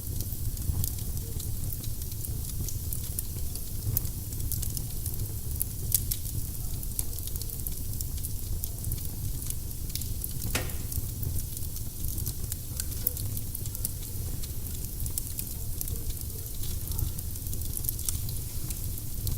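Firewood burning in a fireplace: a steady run of small crackles and snaps over a low rumble of flame, with a couple of louder pops, about six and ten seconds in.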